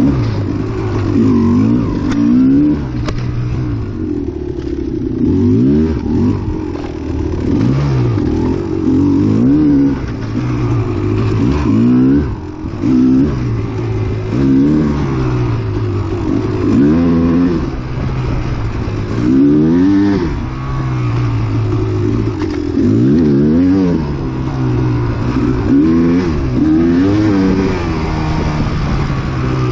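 Kawasaki KX250XC two-stroke dirt bike engine revving up and falling back over and over as the throttle is worked, its pitch rising and dropping every second or two.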